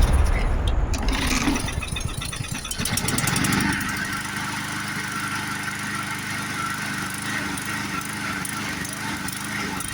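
Small gasoline engine of a Harbor Freight walk-behind lawn mower running after its fuel system was cleaned out. It is louder and rougher for the first few seconds, then settles into a steady, even run.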